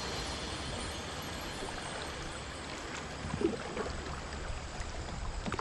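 Shallow river riffle: water rushing and babbling steadily past a kayak's hull as it drifts downstream.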